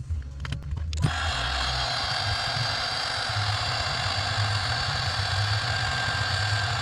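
Heat gun switched on about a second in and blowing steadily, shrinking heat-shrink tubing over a wiring repair.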